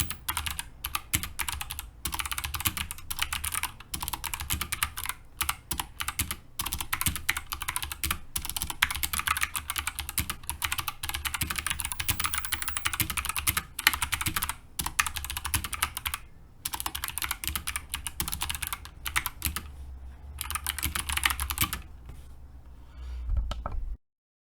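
Mechanical keyboard with Kailh Jade clicky switches being typed on rapidly and continuously, a dense run of sharp key clicks with a few brief pauses; it cuts off suddenly just before the end.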